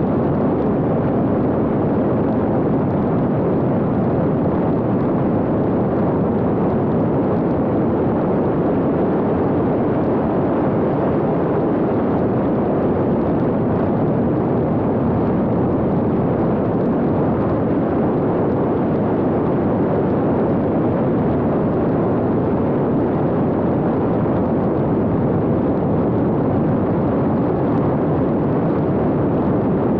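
X-UAV Talon fixed-wing drone in flight, heard from on board: a steady, even rush of airflow and motor noise with no change in pitch.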